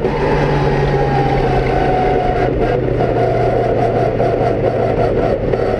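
Off-road rally car's engine heard from inside the stripped cockpit, pulling in third gear; its note falls a little over the first couple of seconds, then holds steady.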